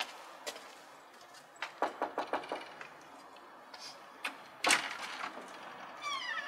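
Door sounds: a run of about five quick knocks roughly two seconds in, a louder bang about halfway through, and a short squeak near the end.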